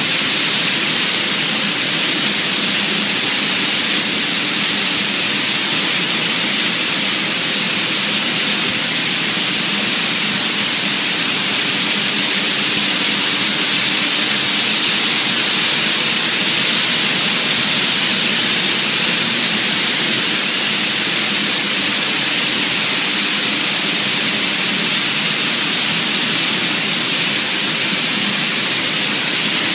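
Automatic spray painting line running: a loud, steady hiss of compressed-air spray guns atomizing paint onto parts on the line, with a faint low machine hum underneath.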